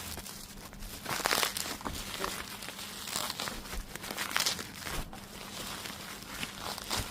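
Packaging being handled and unwrapped, crinkling and rustling in irregular bursts.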